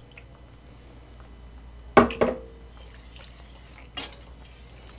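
Wire whisk striking and scraping a stainless steel pan while whisking gravy: two sharp metallic clinks about two seconds in with the pan ringing briefly, then a lighter knock near the end.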